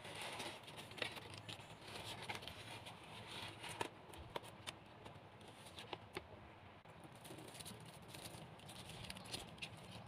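Faint scattered clicks and light rustling from plastic craft pieces being handled.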